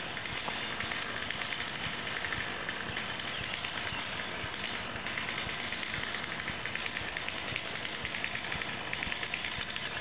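Chainsaw engine idling steadily.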